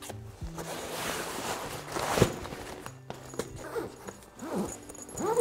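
Nylon fabric rustling and handling noise as a folded softbox is pushed down into its carry bag, with one sharp knock a little after two seconds in. Soft background music plays underneath.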